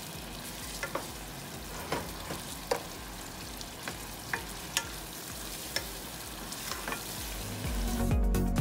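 Chunks of meat sizzling in oil and masala in a non-stick pot as they are browned, stirred with a wooden spatula that clicks and scrapes against the pan about once a second. Electronic background music with a beat comes in near the end.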